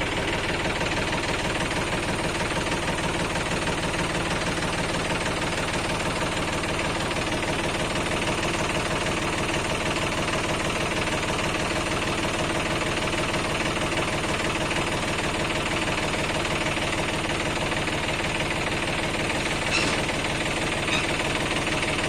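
Diesel engine running steadily at a constant speed, with an even, fast pulsing. A couple of faint clicks come near the end.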